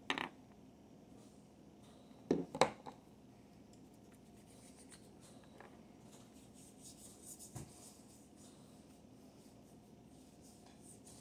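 Soft knocks of a plastic bottle and its cap being handled on a wooden table in a quiet room: one tap at the start, two louder knocks about two and a half seconds in, and a faint one about seven and a half seconds in.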